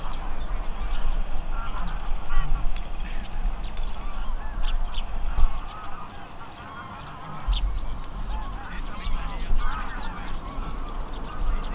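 A flock of geese honking, many calls overlapping one another, with a low wind rumble on the microphone.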